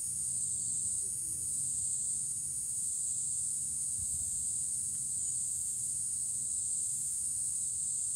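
Insects keep up a steady high-pitched chorus that swells and fades gently, over a low steady rumble.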